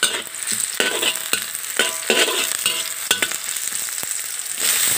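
Sliced garlic and onion sizzling in hot oil in a wok, stirred with a metal spatula that scrapes the pan in strokes about every half second. Near the end the sizzle becomes louder and steadier.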